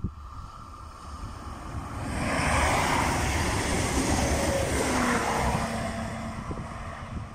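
Passenger multiple-unit train passing close at speed under diesel power. A rushing wheel-and-air noise builds over a couple of seconds, stays loud for about three seconds, then fades as the train draws away, leaving a low steady drone.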